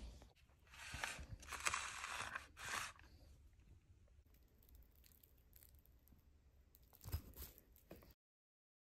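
Handling noises from a notebook and pen: a few rustling, scraping strokes in the first three seconds, then faint quiet with a couple of short rustles near the end before the sound cuts out completely.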